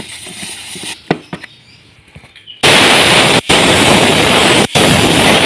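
Carburettor cleaner hissing from an aerosol can's red straw onto the oily engine casing, with small clicks and knocks. About halfway through, a much louder, steady blast of pressurized spray starts and cuts out for an instant twice.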